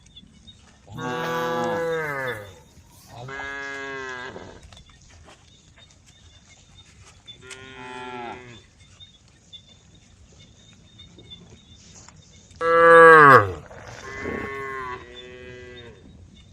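Cows mooing: six long calls spaced a few seconds apart, each falling in pitch, the loudest about two-thirds of the way through.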